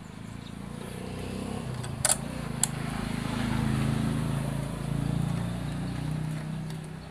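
Old Singer treadle sewing machine running, a low mechanical rumble from its drive and freshly fitted rotary hook that swells and eases. Two sharp clicks come about two seconds in.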